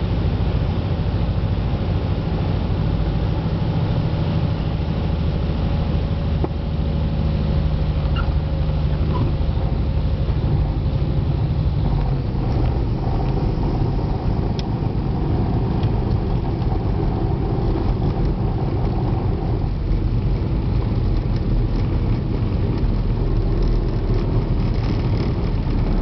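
Cessna 177RG Cardinal's four-cylinder Lycoming engine and propeller running at low power, heard from inside the cabin during the landing rollout, with a thin steady tone that fades out about halfway through.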